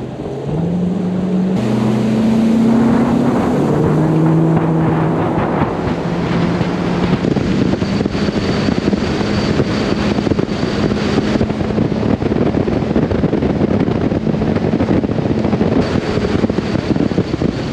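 Bass boat's outboard motor accelerating, its pitch rising over the first few seconds, then running steadily at speed, with wind buffeting the microphone and water rushing past the hull.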